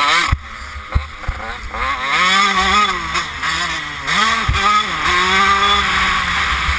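Motocross bike engine revving hard under the rider, its pitch climbing, dropping sharply a little past four seconds in, then climbing again as the throttle and gears change. Low irregular thumps from wind buffeting the helmet-mounted microphone run underneath.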